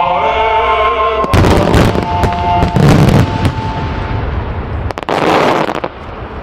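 Aerial fireworks bursting: three loud booms with crackle, over music played on loudspeakers that fades out about two-thirds of the way through.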